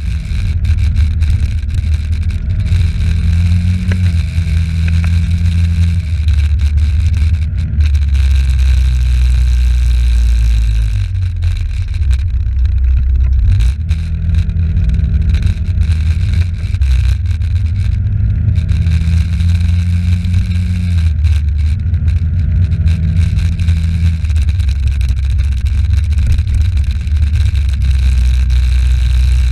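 Small scooter engine running on the move, its note rising and falling several times with the throttle, over a heavy low wind rumble on the microphone.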